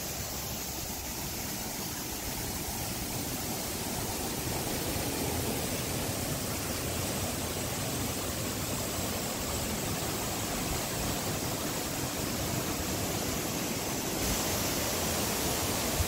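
Steady rush of the Kiyomizu River, a shallow mountain stream, flowing over rocks.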